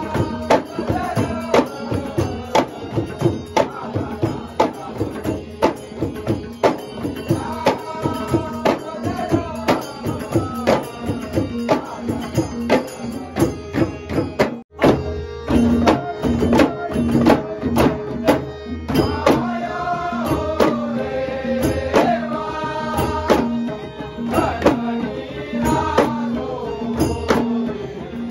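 Konkan folk music: a group of ghumat clay-pot drums beaten by hand in a steady driving rhythm, under a man singing a Shimga song with a harmonium holding a steady note. About halfway through, the sound breaks off for an instant and then resumes.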